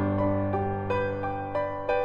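Background music: a slow keyboard melody with a new note every half second or so over a held low note.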